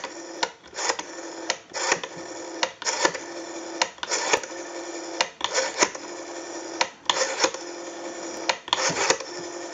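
Western Electric 500 rotary dial being pulled round and let go for one digit after another: each time it spins back, a quick run of dial-pulse clicks sounds, with a steady tone between some of the runs. The handset's receive audio is amplified through a pickup.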